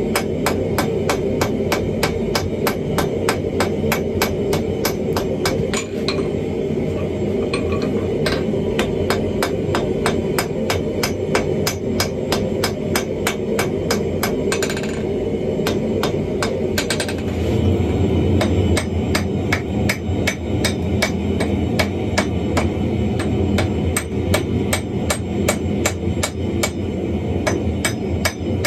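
Hand hammer striking hot wrought iron on a steel anvil in a steady rhythm, about three sharp ringing blows a second. A steady low rumble runs underneath and grows heavier a little past halfway.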